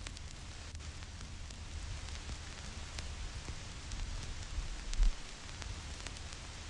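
Vinyl record surface noise: a stylus tracking a dusty groove gives a steady hiss with scattered crackles and pops over a low rumble, and a single low thump about five seconds in.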